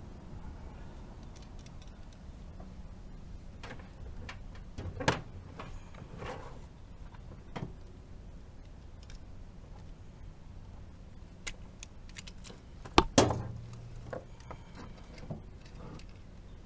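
Scattered metallic clicks, clinks and knocks of hand work on a heat pump's electrical section: fittings, tools and panel parts being handled. The loudest is a sharp double knock about 13 seconds in, with lighter ones between 5 and 8 seconds, over a faint low hum.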